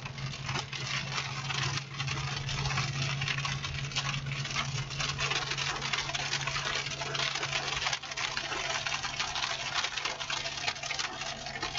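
Car engine and road noise heard from inside a moving vehicle: a steady low hum under a constant rush, with many small ticks and knocks.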